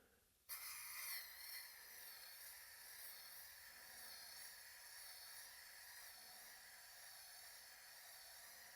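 Aerosol spray can spraying paint in one long continuous burst: a faint steady hiss that starts about half a second in.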